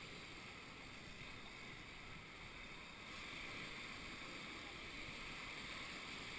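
Sea waves washing onto a beach: a steady, faint hiss of surf.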